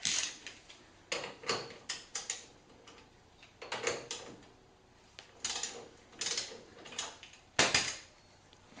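Socket ratchet clicking in short bursts as a suspension bolt on a Trailblazer's front strut assembly is worked loose, in clusters of quick strokes with pauses between.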